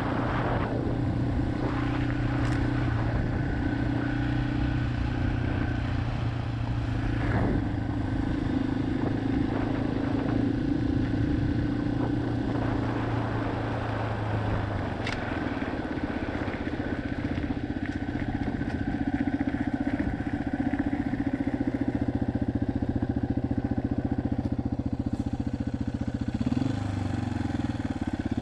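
Yamaha XT250's single-cylinder four-stroke engine running under way on a ride, with a steady engine note that shifts once near the end.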